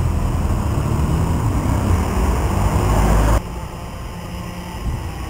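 Thunder rumbling loudly and deeply, cutting off suddenly about three and a half seconds in, leaving a quieter steady background rumble.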